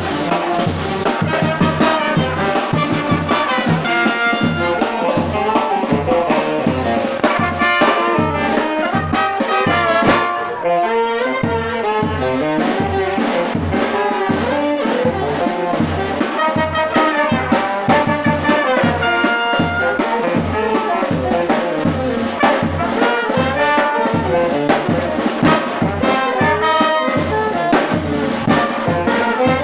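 Frevo music: a brass band with trumpets and trombones playing over a quick, steady beat, the beat dropping out briefly about ten seconds in.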